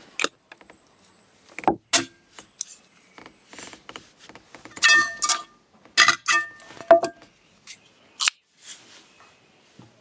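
Metal camping cookware being handled: a pot and small gas-stove parts clinking and knocking together in a series of sharp metallic clinks, some ringing briefly, loudest about five and six seconds in.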